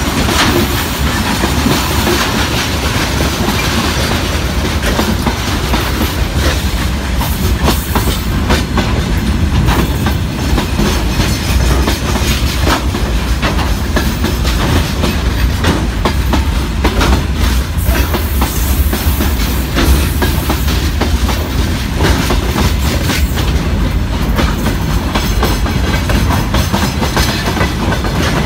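Freight wagons of a goods train rolling past close by: steel wheels clattering over the rail joints in a steady clickety-clack over the rumble of the cars.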